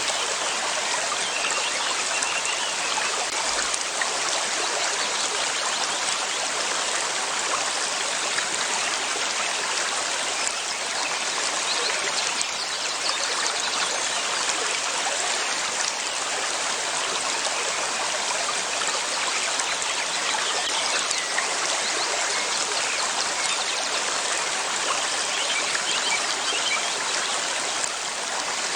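River water flowing steadily: an even, continuous rushing with trickling.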